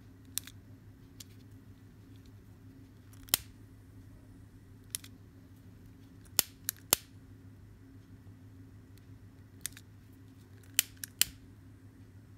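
Scissors snipping macrame cord: about ten short sharp snips at irregular intervals, some in quick runs of two or three, typical of trimming the cord ends while finishing a bracelet.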